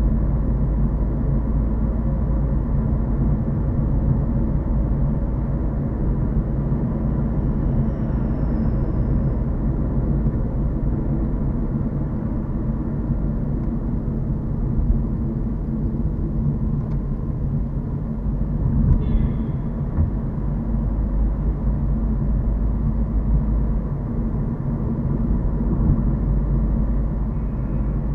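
Car driving at a steady pace, its engine and road noise a steady low rumble heard from inside the cabin.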